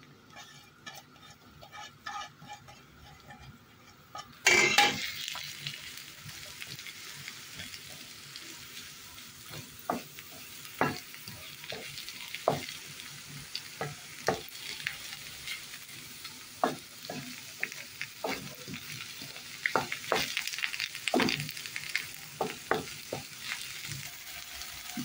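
Chopped onion and garlic sizzling in oil in a nonstick frying pan, the sizzle starting about four seconds in. A wooden spoon stirring them taps and scrapes against the pan now and then.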